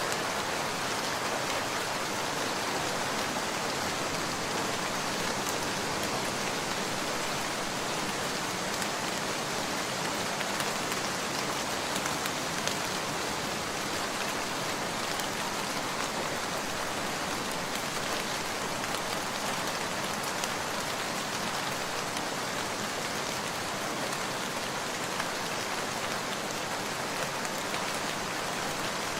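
Steady rain falling on a surface, with faint scattered drop ticks.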